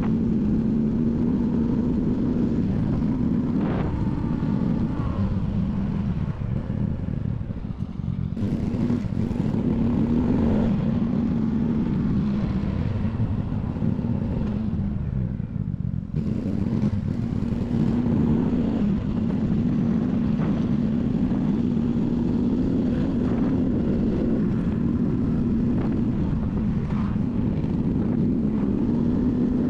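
Honda Cross Cub 110's small single-cylinder four-stroke engine running steadily under way, a constant hum with a brief easing of the noise about a quarter of the way in.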